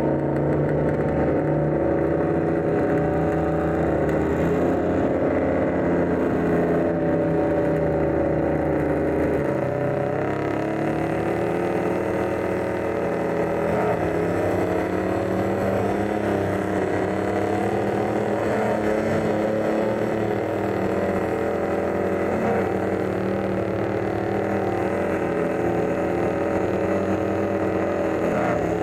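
Two-wheel-drive pickup trucks chained together in a tug of war, their engines held at full throttle under heavy load as the rear tyres spin in the dirt. The engine note holds steady, with a shift in pitch about ten seconds in.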